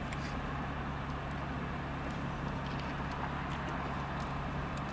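Steady low hum of a car cabin, the car's engine or fan running, with a few faint clicks.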